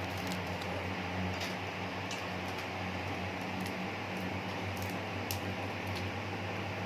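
Faint, scattered clicks and crackles of a large cooked shrimp being handled and peeled by hand, over a steady low hum and hiss.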